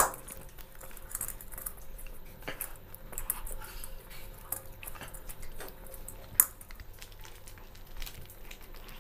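Eating by hand from metal plates: fingers mixing and scraping rice and curry, with scattered small clinks and scrapes. Two sharper clinks stand out, one at the very start and one about six seconds in.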